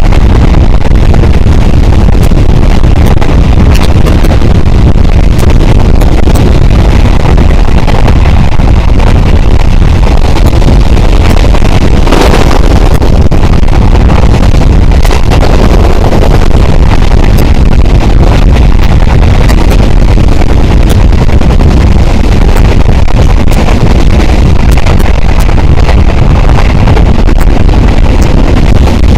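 Passenger train running at speed, heard from a camera mounted on the outside of the carriage: a loud, steady rush of wind buffeting the microphone over the rumble of the wheels on the rails. A brief louder surge comes about twelve seconds in.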